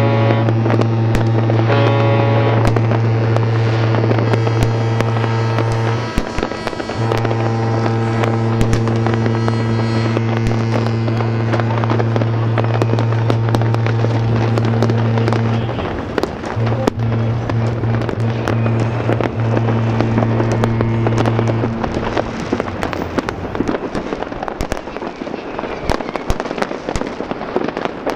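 Ships' horns blowing long, deep, steady blasts, several overlapping, with a short break about six seconds in and another near sixteen seconds, falling silent a few seconds before the end. Fireworks bangs and crackles go on throughout.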